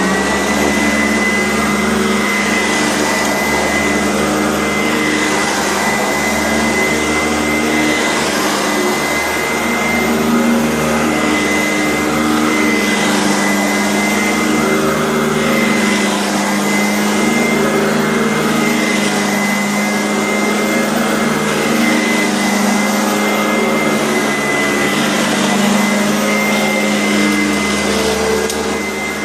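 Kent Euroclean vacuum cleaner running steadily, its motor giving a constant high whine over the rush of airflow.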